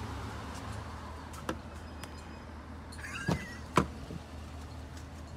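Pickup truck door being opened: a few sharp clicks from the handle and latch, the loudest about four seconds in, over a steady low hum.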